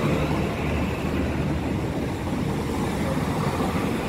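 NI Railways diesel multiple unit passing close by over a level crossing: a steady noise of its underfloor engines and wheels on the rails as the last carriage goes past.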